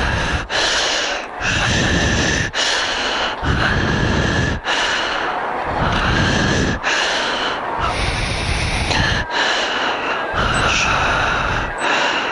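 A person breathing heavily close to the microphone, a breath about every second and a half.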